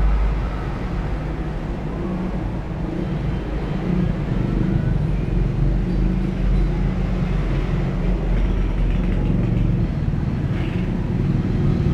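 A steady low rumble with a wavering engine-like drone, as of motor vehicles running.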